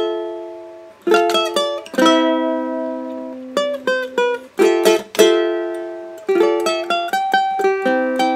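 Background music of plucked string chords, struck sharply and left to ring and fade, then strummed faster near the end.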